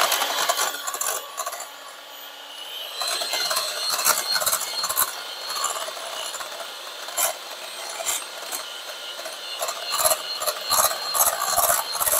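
Electric hand mixer running, its beaters whipping heavy cream and powdered sugar in a glass bowl, with a steady motor whine and the rattle and clicking of the beaters against the bowl. It gets louder about three seconds in, and the clatter is thickest near the end as the cream starts to thicken.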